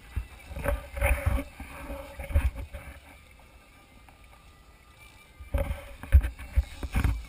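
Muffled irregular thumps and rubbing on a GoPro in its waterproof housing, with some wind on the microphone, as the angler pumps and reels a bent fishing rod. The knocks come in two bursts, the second starting about five and a half seconds in, with a quieter stretch between.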